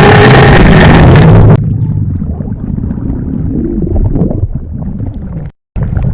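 A person's stomach growling and gurgling, recorded close up. It is very loud for the first second and a half, then settles into lower rumbling with wavering gurgles. A brief silent gap comes near the end, then the rumbling resumes.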